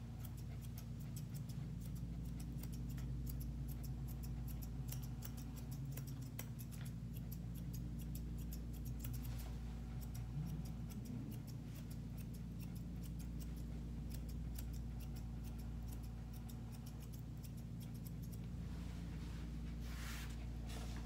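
Grooming scissors snipping through a West Highland White Terrier's coat in quick runs of crisp metallic snips, over a steady low hum.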